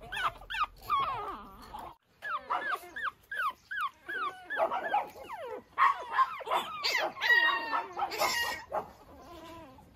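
Pekingese puppies whining: a rapid string of short, high whimpers, a few a second, with a brief gap about two seconds in, then denser and overlapping from more than one pup in the second half.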